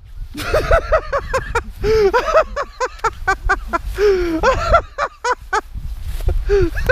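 Several people's voices letting out short, high-pitched cries and yelps in quick succession, with no clear words.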